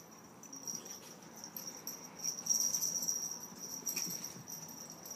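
Pet collar hardware jingling in rapid high-pitched pulses as a Yorkshire terrier and a cat wrestle, loudest a couple of seconds in, over soft scuffling of bodies on a rug.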